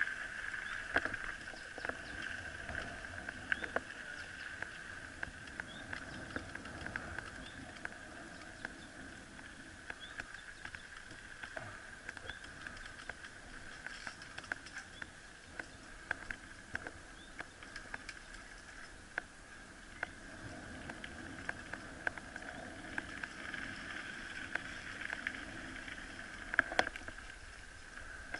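Mountain bikes rolling along a sealed road: faint tyre and drivetrain noise with scattered light clicks and rattles, over a steady high-pitched drone.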